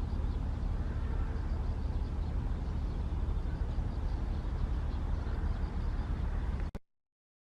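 Steady outdoor rumble, heaviest at the low end, with no distinct events; it cuts off abruptly to complete silence near the end.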